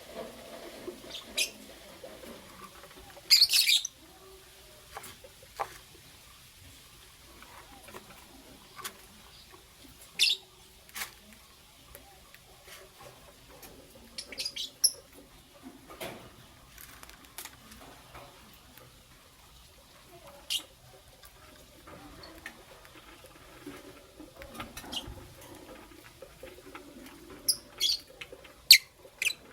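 Lovebirds giving short, sharp, high chirps every few seconds, with a loud cluster a little over three seconds in and several more near the end.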